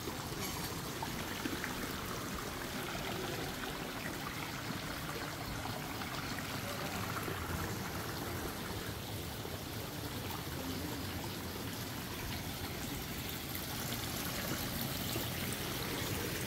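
Water running steadily, a continuous pouring trickle.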